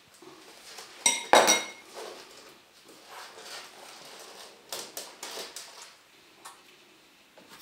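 A hard clatter with a short ringing tone about a second in, like a dish being knocked, followed by several lighter knocks and scrapes.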